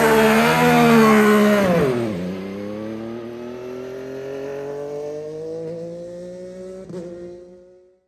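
A hybrid IndyCar's 2.2-litre twin-turbo V6 revving hard as it pulls away. About two seconds in the pitch drops at a gear change, then climbs steadily as the car accelerates away and fades into the distance.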